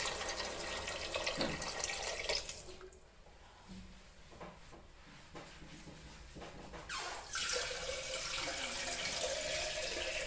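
Water running into a cooking pot of pigeon peas as water is added for the rice. It stops for a few seconds in the middle, with a few light clinks, then runs again.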